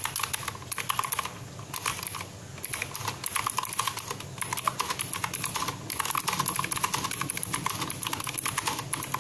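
Fast typing on a mechanical keyboard fitted with short, round typewriter-style keycaps: rapid keystroke clicks in runs, broken by a few brief pauses. The typist finds it possibly a little quieter than with ordinary keycaps because the caps are short.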